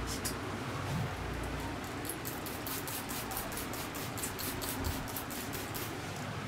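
Barber's hands massaging skin: a quick, even run of light strokes, about five or six a second, starting about two seconds in and stopping near the end.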